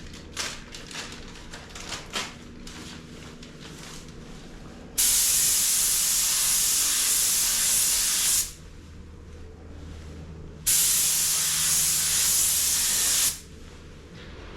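Paint spray gun spraying in two passes of about three seconds each, a loud steady hiss that starts and stops abruptly as the trigger is pulled and released, with a few light clicks before it. It is laying paint or clear coat onto a repaired car bumper.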